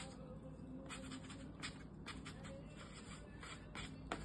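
Hands tucking and shaping a loaf of sourdough dough on a floured countertop: faint scrapes and soft taps, a scattering of short scratchy sounds.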